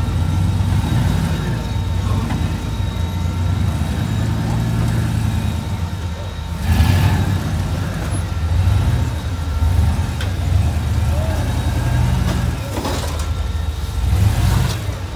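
Rock-crawler buggy's engine running at low revs under load, swelling and easing with the throttle as it crawls up a rock ledge. Two brief louder noises come about seven and thirteen seconds in.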